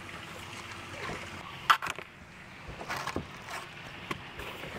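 Kayak paddle splashing softly in pool water, with a sharp knock just under two seconds in.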